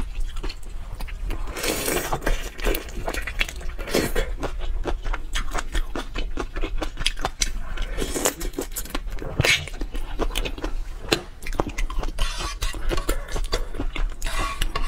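Whole shrimp being peeled and pulled apart by hand and bitten at, close to a clip-on microphone: a dense run of small shell crackles and clicks with a few louder crunches.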